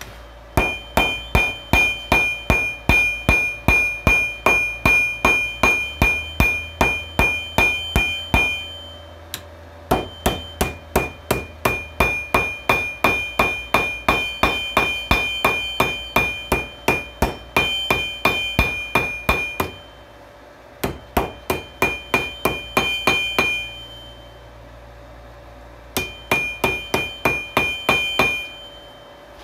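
Hand hammer striking hot steel on a 66 lb steel anvil, forging out a railroad spike. The blows come about two to three a second in runs of several seconds, with short pauses between runs, and each blow rings with a high metallic tone. A low steady hum runs underneath.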